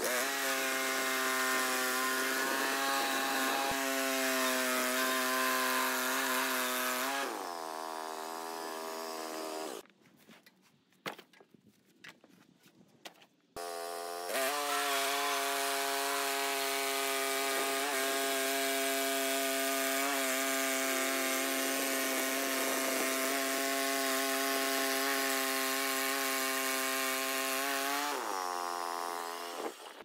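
Engine of a Woodland Mills HM130MAX portable bandsaw mill running steadily while the band blade saws through a log. About seven seconds in it winds down and goes quiet apart from a few light clicks, then starts up again about fourteen seconds in, runs steadily, and winds down near the end.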